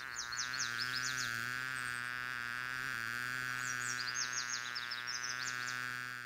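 Cartoon bee buzzing sound effect: a steady, low buzz with a slight waver in pitch. Two spells of quick, high twittering chirps sound over it, one at the start and another about four seconds in.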